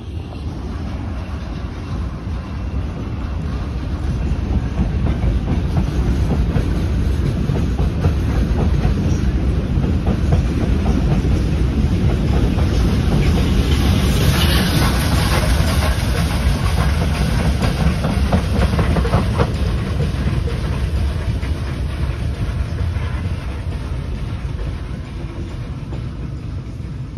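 Steam-hauled passenger train passing close by, its wheels clattering over the rail joints in a steady clickety-clack. The noise builds to its loudest about halfway through, as the tender and carriages go past, and fades as the train draws away.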